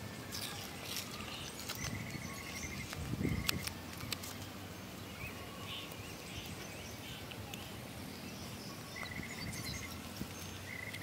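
Outdoor ambience: a steady background hiss with short, high rattling trills from an insect or bird, heard about two seconds in and twice more near the end. A dull low thump comes about three seconds in.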